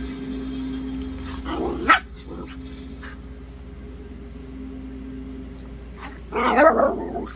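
Dogs play-fighting, with a short sharp bark about two seconds in and a louder, longer bout of barking near the end.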